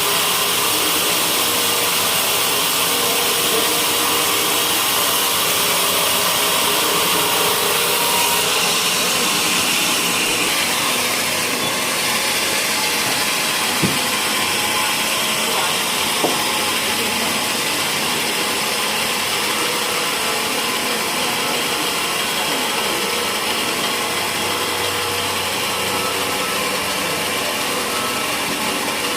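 Sawmill blade running through a teak beam, a steady, loud cutting hiss and whine. The highest part of the sound falls away about nine seconds in, and two short knocks come a couple of seconds apart midway.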